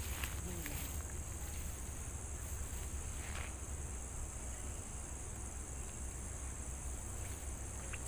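Steady high-pitched insect drone, with a low rumble underneath and a couple of faint clicks.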